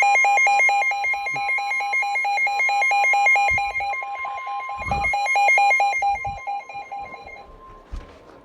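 Weather alert radio sounding its tornado warning alarm: rapid beeping of about four beeps a second for roughly seven and a half seconds, over a steady tone that goes on for about a second after the beeping stops.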